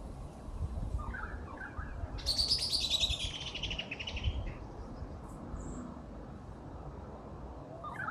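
Bird calls: a few short chirps, then a loud, rapid trill that falls in pitch and lasts about a second and a half, under a low rumble.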